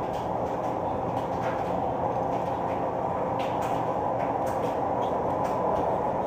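Steady low mechanical rumble, like machinery running, with a few faint knocks over it.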